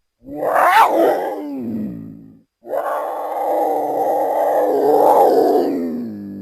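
Animal-call sound effect meant as the voice of the extinct American cheetah: a short call that rises and then falls in pitch, then a longer, steadier call of about four seconds that drops in pitch near the end.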